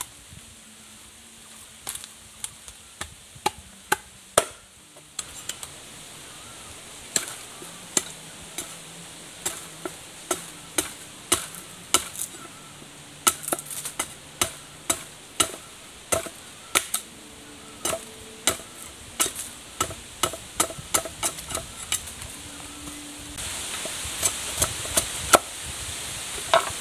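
Machete striking green bamboo as it is chopped and split into strips: a run of sharp knocks, about one every half second to second, unevenly spaced. A steady hiss comes in near the end.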